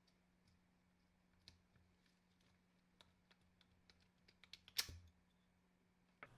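Scattered faint clicks and light taps, like small parts or a tool being handled, with a quick run of clicks and one louder click about five seconds in.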